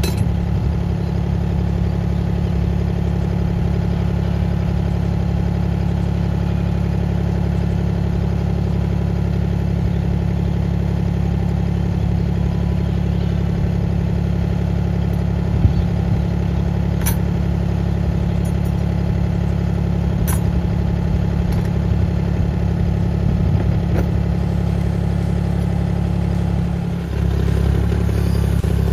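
Mini excavator's small engine idling steadily, with a few sharp clicks in the middle. Near the end the engine note dips briefly and then runs a little louder as the control levers are worked.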